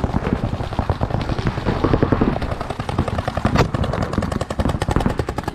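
Paintball markers firing rapid streams of shots, a fast run of sharp pops that goes on with hardly a break.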